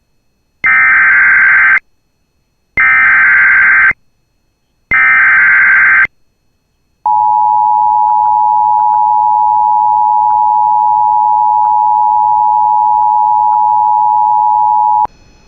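Emergency Alert System header: three one-second bursts of SAME digital data tones, then the EAS two-tone attention signal, a steady dual tone held about eight seconds and cut off abruptly. Together they signal the start of a new emergency alert broadcast.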